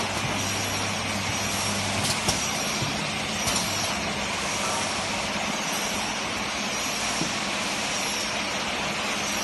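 Shrink-wrapping machine running with its heat-shrink tunnel and conveyor: a steady rushing noise over a low hum, with a few light clicks.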